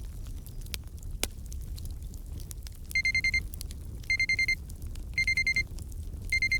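Crackling fireplace. About three seconds in, a digital timer alarm starts over it: quick clusters of four or five high beeps, repeating about once a second.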